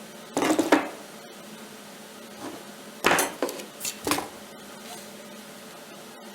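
Metal clanking and knocking as steel parts of a tack-welded steel-angle frame are handled and set in place, in a few short clusters: one in the first second and more around three to four seconds in.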